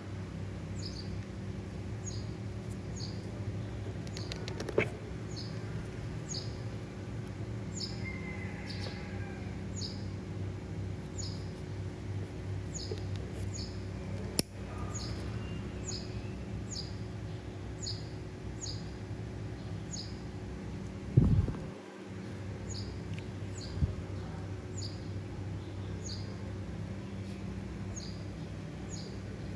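A bird chirping over and over, one short high falling chirp about every two-thirds of a second, above a steady low hum. A few sharp knocks break in, the loudest about 21 seconds in.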